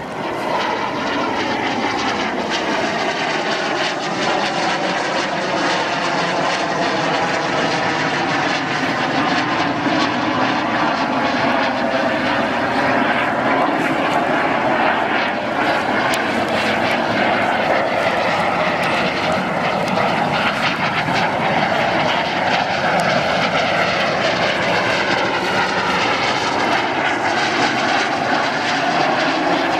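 PZL-Mielec TS-11 Iskra jet trainer's single turbojet engine heard in flight overhead: a continuous jet noise whose tone slowly sweeps up and down as the aircraft moves across the sky.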